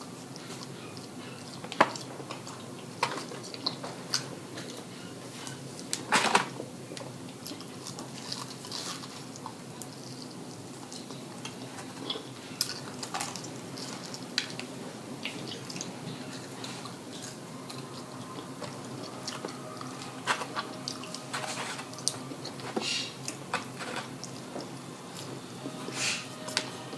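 A person eating fried food close to the microphone: chewing with scattered short wet mouth clicks and smacks, and a few louder knocks and clatters spread through.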